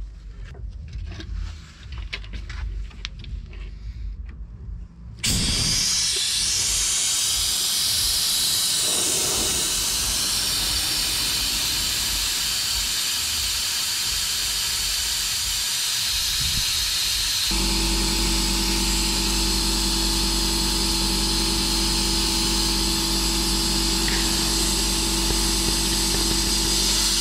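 A few light clicks and handling noises, then a sudden loud, steady hiss of spray or jetting about five seconds in that keeps going. About twelve seconds later a steady motor hum starts up under it.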